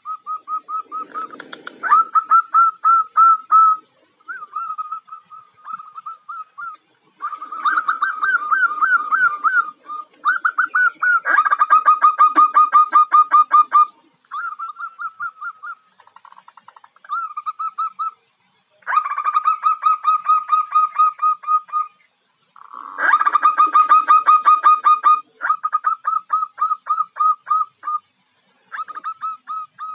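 Zebra dove (perkutut) calling: phrases of rapid, evenly repeated cooing notes, each a second to a few seconds long, separated by short gaps. It is presented as a female's call used to lure males.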